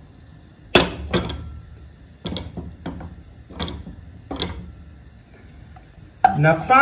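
About seven sharp pops and clicks, irregularly spaced, from a hot pot of olive oil with garlic cloves just added.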